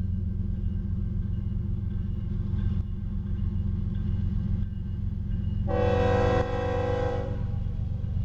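Diesel freight locomotive's air horn sounding one loud blast of about a second and a half, a little over halfway through, over a steady low rumble.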